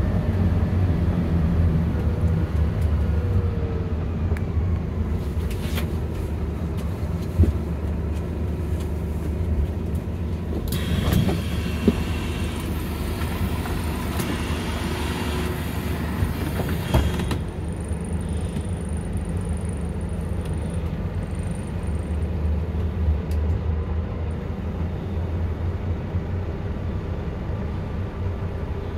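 Scania Omnilink city bus engine running with a steady low rumble. About a third of the way in, a hiss of several seconds sets in and then cuts off suddenly, with a few light knocks around it.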